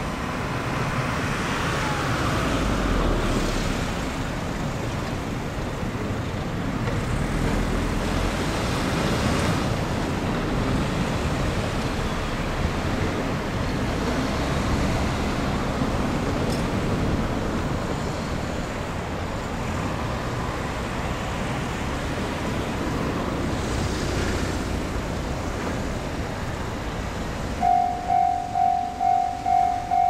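KiHa 187 series diesel railcar approaching: a steady rumble mixed with wind noise on the microphone. Near the end, a level-crossing bell starts ringing at about two strokes a second.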